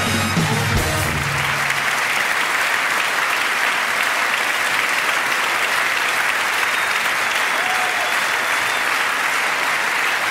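A large audience applauding steadily in a standing ovation. The tail of music fades out in the first second or so.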